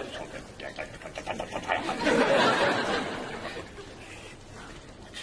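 Low mumbling into someone's ear, then a burst of audience laughter about two seconds in that fades off.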